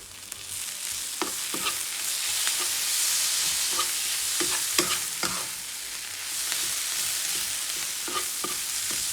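Onions and nokoss seasoning paste sizzling in hot oil in a pan, stirred with a utensil that knocks against the pan several times.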